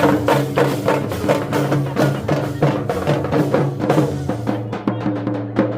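Jharkhandi folk dance music: a fast, steady drum beat of about four strikes a second over a held low tone.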